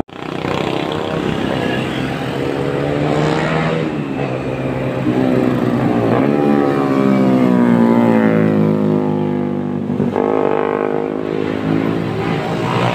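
Motorcycle engines passing at speed through a hairpin bend, their pitch rising and falling several times as each one accelerates through and goes by.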